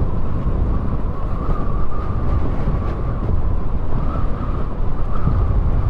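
Motorcycle riding along a road: the engine running steadily, with a wavering whine, under a heavy low rumble of wind and road noise on the microphone.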